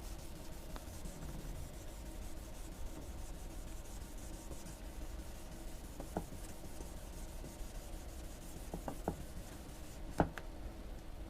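Faint wet-sanding of a plastic headlight lens: a hand sanding block rubbing back and forth over the water-lubricated surface to cut away the oxidised, contaminated top layer, with a few light clicks in the second half.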